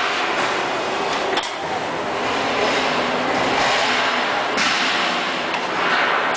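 Steady industrial machinery noise at a drum filling station: a constant hiss over a low hum, swelling and easing every second or two, with a sharp knock about a second and a half in.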